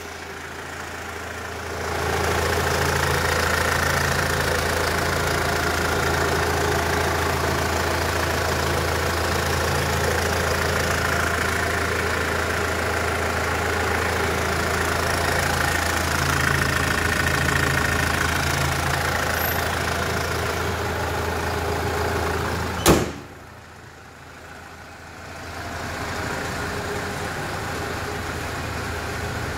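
Hyundai Terracan's 2.9-litre CRDi common-rail diesel engine idling steadily with the bonnet open. Near the end the bonnet is shut with one sharp bang, and the idle goes on quieter and muffled.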